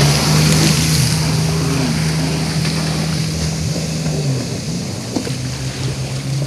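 Jet ski engine running steadily at speed, with the hiss of spray and wind over it. The engine eases off slightly about four seconds in.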